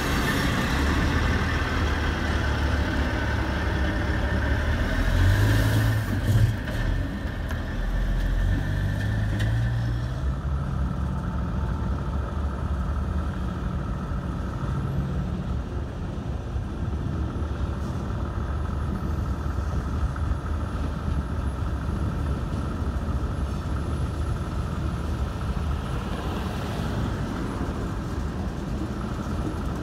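Freight train rolling past a grade crossing: steel wheels on rail over a diesel locomotive engine. After about ten seconds the wheel noise falls away, leaving the steady low rumble of a Providence & Worcester diesel locomotive moving slowly.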